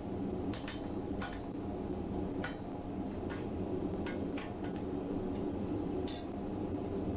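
Scattered light metallic clicks and clinks of a wrench on steel bolts and bracket as the vise mount is tightened, irregular and about a dozen in all, over a steady low hum.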